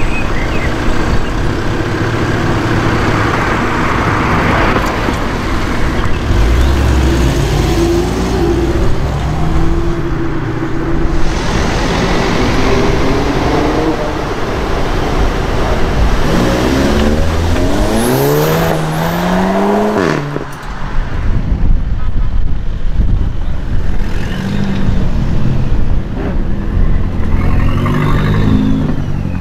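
Volkswagen Golf Mk7 hatchbacks pulling away one after another, each engine revving up with a rising pitch as it accelerates; the loudest run-up comes about two-thirds through and cuts off suddenly.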